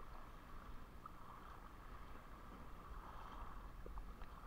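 Faint, steady wash of small sea waves lapping in shallow water over rocks.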